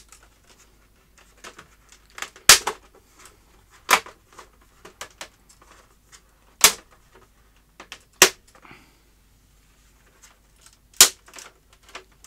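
Plastic snap-fit clips of an LG W2261V monitor's front bezel popping loose as it is prised off by hand: five sharp snaps at irregular intervals a second or two apart, with smaller clicks between.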